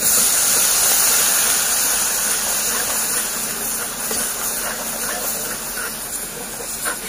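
Ginger-garlic paste, chopped green chillies and a flour-and-oil roux sizzling steadily in hot oil in a kadhai. The sizzle starts suddenly and eases a little over the seconds.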